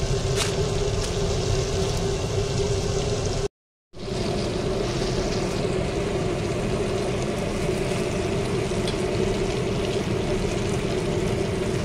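Hot oil sizzling and bubbling as chicken pieces deep-fry in a small stainless steel pot, over a steady hum. The sound drops out suddenly for a moment about three and a half seconds in.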